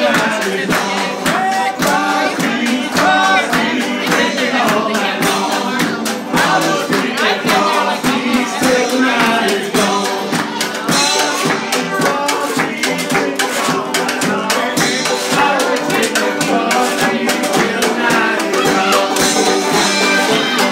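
Live folk band playing: strummed acoustic guitar and a washboard scraped in a fast steady rhythm, with a suitcase drum, and a man singing the melody.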